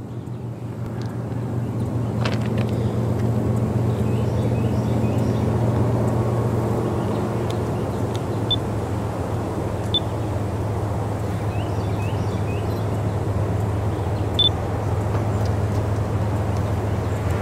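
Diesel locomotives of an approaching freight train, heard before it comes into view: a low, steady engine drone that swells over the first few seconds and then holds.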